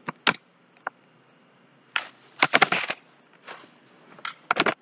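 Computer mouse and keyboard clicks: a few single clicks, then a quick run of clicks about two and a half seconds in, and another pair near the end.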